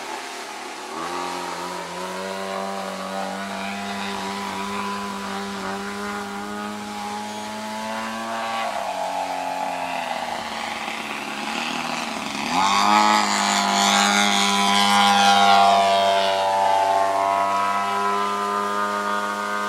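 The 120cc two-stroke petrol engine of a Goldwing Corvus Racer RC aerobatic plane running hard in flight. Its note sags and slides lower from about eight seconds in. It jumps back up at about twelve and a half seconds and is loudest for the next few seconds.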